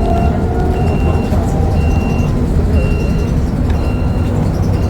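Inside a city bus: the engine and running gear rumble steadily under a high electronic beep that repeats about once a second, each beep about half a second long.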